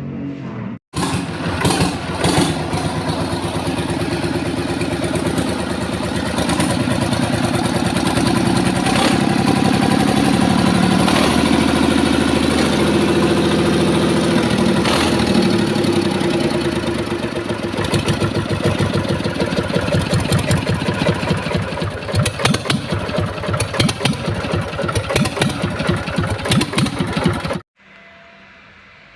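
Deutz F3L912 air-cooled three-cylinder diesel engine running with a rapid, even firing beat. Its speed rises through the middle and grows more uneven near the end, and the sound cuts off abruptly.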